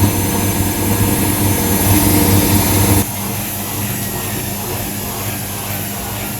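Washing machine running, a steady mechanical drone with a low hum that drops in level about halfway through.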